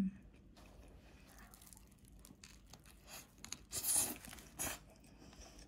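Paper wrapping around a sandwich crinkling and rustling as it is handled, in a few short bursts, the loudest about four seconds in.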